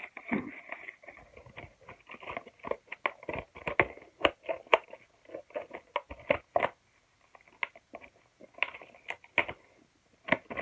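Plastic and cardboard toy packaging being worked open by hand: an irregular run of sharp crinkles, clicks and snaps as the toy engine is pried out of its box.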